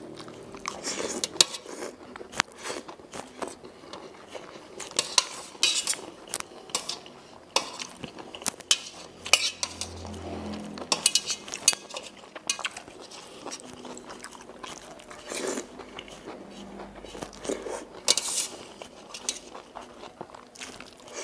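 Metal spoon and metal chopsticks clinking and scraping irregularly against a stainless steel plate while noodles are picked up, with short slurps and chewing of mie ayam noodles in between.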